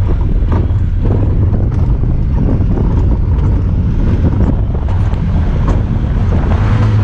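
Honda Talon 1000R side-by-side's parallel-twin engine running steadily while driving, with wind buffeting the microphone and scattered short knocks and rattles.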